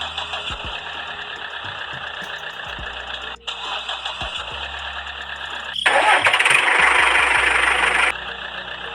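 Vehicle engine running steadily with a rough, rattling sound, cutting out for a moment about three and a half seconds in; near six seconds a much louder, brighter engine sound comes in for about two seconds and stops abruptly.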